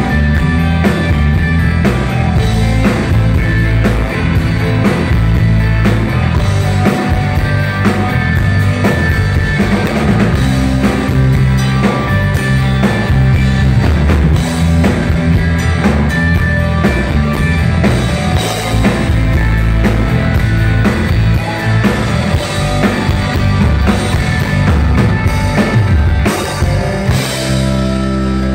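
Live rock band playing loud with electric guitars, bass guitar and a drum kit, heard through the club PA. Near the end the drumming stops and the band holds a ringing chord.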